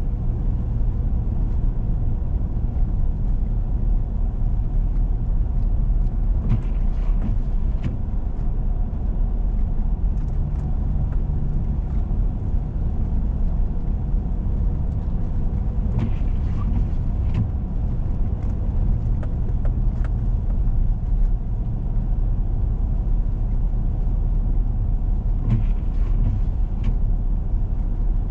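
Steady low rumble of a four-wheel-drive vehicle driving on a snow-covered road: engine and tyre noise, with a few brief knocks or rattles at intervals.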